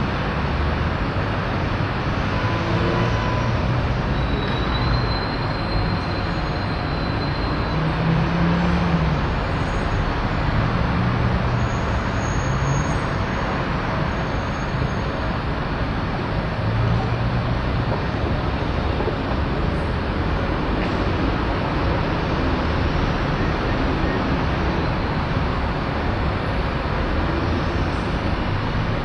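Steady outdoor background noise of a large railway yard and surrounding traffic, with no single event standing out. A thin high whistle starts about four seconds in and lasts a few seconds.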